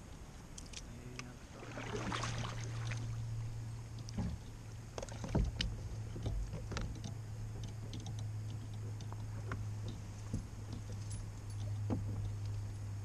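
Paddle and fishing gear knocking and clicking against a kayak hull, over a steady low hum that starts about one and a half seconds in.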